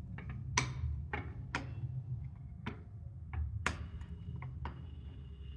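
A series of irregular sharp clicks and taps from hard objects being handled and set down, about a dozen in the span, over a steady low rumble.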